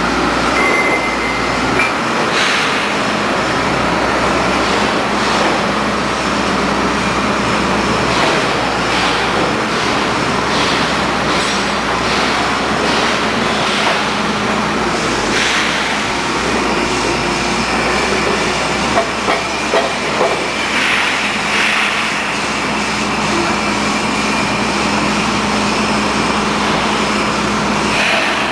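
Rotary drilling rig running steadily, a continuous loud machine noise with a constant low hum and scattered short knocks and clanks.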